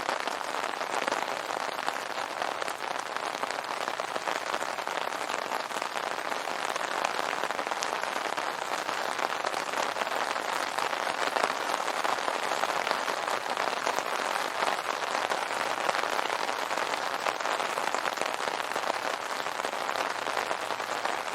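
Rain pattering steadily on an umbrella canopy, a dense even hiss of many fine drop impacts.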